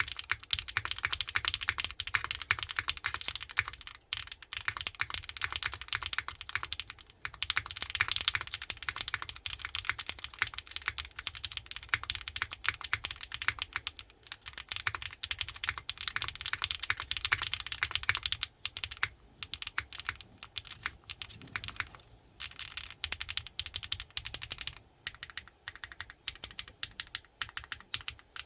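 Typing on a Rule 60 gasket-mount mechanical keyboard with Kailh BCP switches, GMK Honey Beige keycaps, a PC plate and PE and plate foam: a fast, steady run of keystrokes with a brief pause about four seconds in, becoming sparser in the last third.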